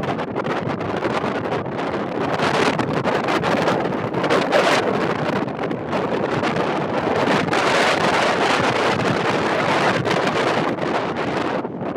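Strong wind buffeting the microphone, a loud rushing rumble that surges and eases in gusts.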